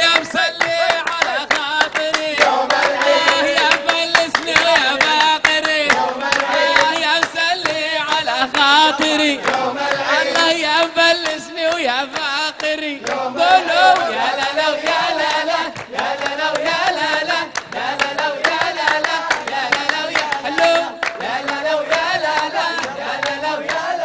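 Men singing a nasheed in chorus over rhythmic hand-clapping.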